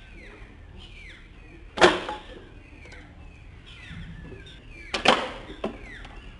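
Homemade PVC-pipe rat traps being set off by hand: a rubber-band-loaded trap door snaps shut with a sharp clack about two seconds in. A second trap door snaps shut about five seconds in, followed by a lighter click.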